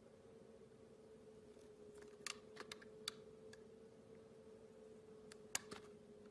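Utility knife blade slicing into a block of clear soap, making scattered crisp clicks: a few a little past two seconds in and the loudest about five and a half seconds in. A faint steady hum runs underneath.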